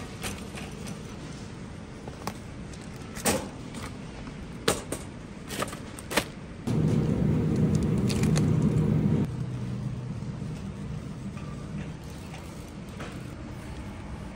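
Metal shopping cart rolling and rattling, with scattered sharp clicks and knocks as groceries are handled. A louder low rumble rises suddenly about halfway through and stops a couple of seconds later.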